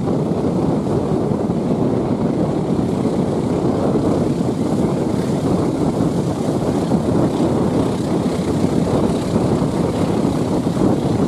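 Steady rushing wind and road rumble from a moving vehicle: an even noise with no distinct engine note, horn or other event standing out.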